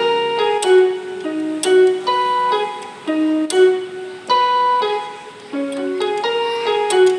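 Keyboard in a piano voice playing a repeating right-hand figure on an F-sharp major chord in second inversion, single notes and short chords struck at about two a second.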